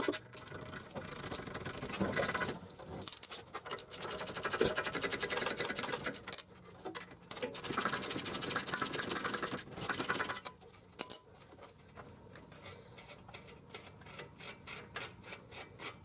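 Ratchet wrench clicking in fast runs as a 13 mm 12-point hub bolt is backed out, then slower, fainter clicks over the last few seconds.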